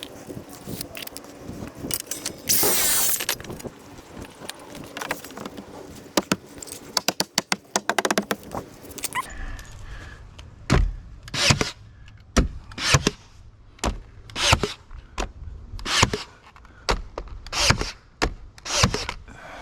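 Carpentry work on trim boards: clatter and clicks with one brief loud burst about three seconds in, then about a dozen separate knocks, roughly one every 0.7 seconds, through the second half.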